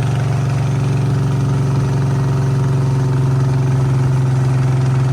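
Small boat's engine running loudly and steadily at an even speed, with a strong low hum.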